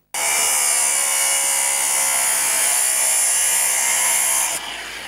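Angle grinder with a cutting disc cutting through a metal-faced sandwich panel: a loud, steady high whine with hiss. About four and a half seconds in, the highest part of the whine cuts off and the sound drops to a quieter buzz.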